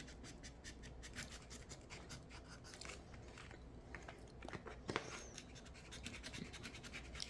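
Faint scratching and scattered small clicks of handling and eating ice cream bean (Inga edulis) fruit.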